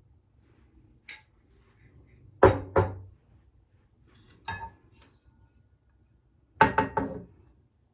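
Dishes and glassware clinking as they are set down and handled, in separate knocks with a short ring: a faint click about a second in, two sharp clinks in quick succession, another a little later, then a quick run of three or four near the end.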